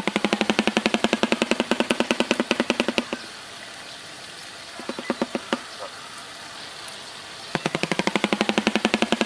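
Shoebill clattering its bill, a rapid machine-gun-like rattle of clapping mandibles. A run of about three seconds stops, a few single claps follow, and the rattle starts again near the end.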